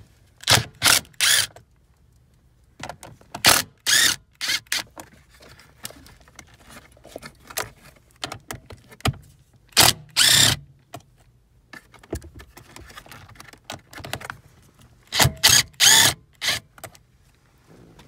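Cordless impact driver run in short bursts, about four times, backing out the bolts that hold down the manual shifter boot, with small clicks and rattles of the socket and loose bolts between bursts.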